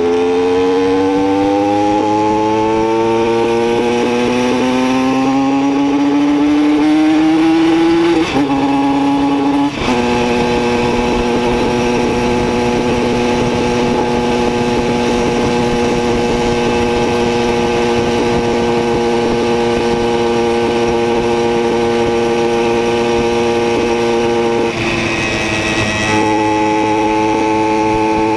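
Simson moped's two-stroke single-cylinder engine under way, its pitch rising as it accelerates, with two quick gear changes about eight and ten seconds in, then holding a steady cruise. A brief dip near the end as the throttle eases, then it picks up a little again.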